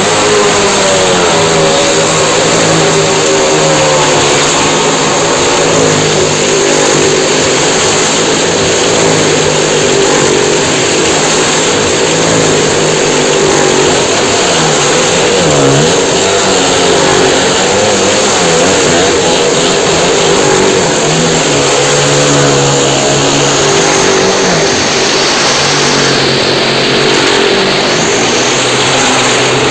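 A motorcycle and a car riding the wooden wall of a Well of Death, their engines running continuously at speed. The engine note wavers up and down without a break.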